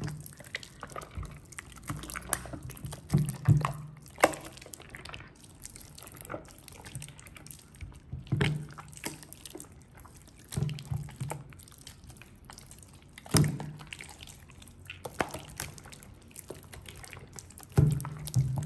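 Hands squeezing and kneading a large mass of clear slime mixed with soap: wet squelching and sticky popping, with a louder squelch every couple of seconds.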